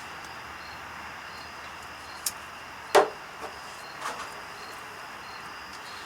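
A few sharp knocks and clinks of hand tools such as wrenches being handled, the loudest about three seconds in, over a steady hiss with a faint high chirp repeating.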